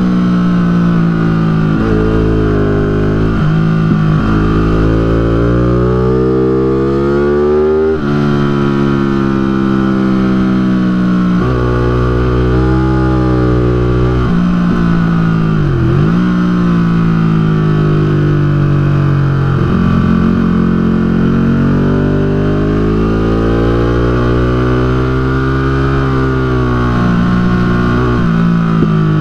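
Onboard sound of a Ducati 1199 Panigale S superbike's L-twin engine at racing speed. The engine note repeatedly climbs hard under acceleration and falls away sharply when the rider brakes into corners, about 4, 16 and 26 seconds in.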